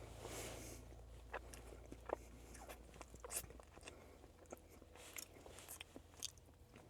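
Faint chewing and mouth sounds from someone eating a Blizzard of soft-serve ice cream with cake pieces blended in, with scattered small clicks.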